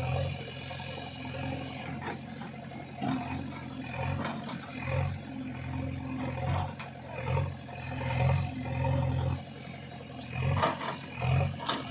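JCB backhoe loader's diesel engine running under load, swelling and easing every second or two as the machine works, with a few short knocks near the end.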